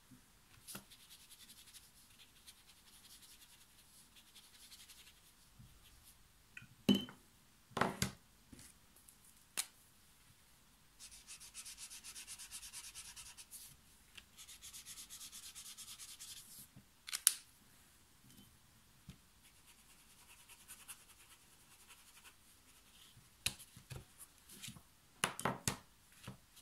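Ecoline brush pen's soft tip scrubbing over textured watercolour paper: two spells of fast, fine rasping strokes near the middle, as a blue swatch is laid on each strip. A few sharp clicks and taps stand out, the loudest about seven and eight seconds in.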